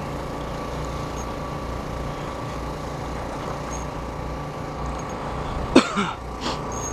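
Portable generator running with a steady hum. One short, sharp sound cuts through it near the end.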